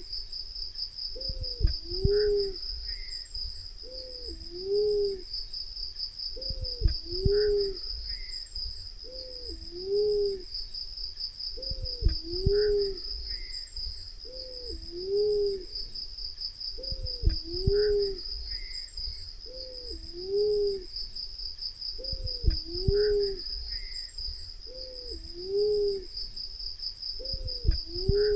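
Black-naped fruit dove's low cooing call of two short hooked notes, the second a little lower, repeated evenly about every two and a half seconds: a looped lure call for drawing the doves in. A steady high insect chirring runs underneath.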